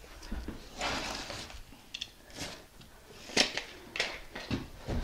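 Footsteps and shoe scuffs as a man steps out of a newly set bathtub and walks off. There is a scraping rustle about a second in, then a few sharp knocks and taps, the loudest just past the middle.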